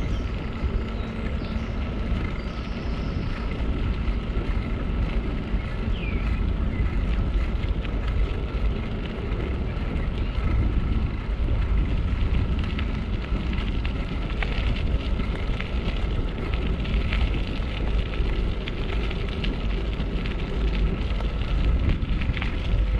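Bicycle tyres crunching steadily over a loose gravel path, with wind buffeting the microphone.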